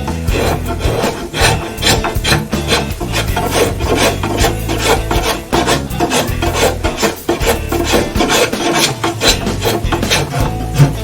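A hand tool scraping wood in quick repeated strokes, about two to three a second.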